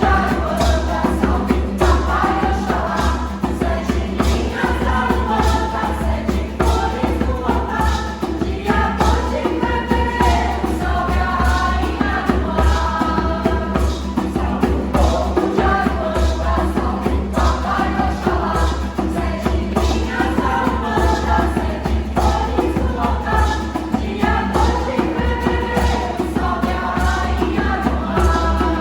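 A choir singing with instrumental accompaniment, over a steady bass and beat.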